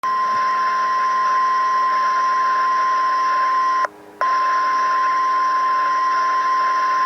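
Weatheradio warning alarm tone, the single steady 1050 Hz tone sent before a severe weather warning, heard off the air with a steady hiss beneath it. It breaks off briefly about four seconds in, then resumes.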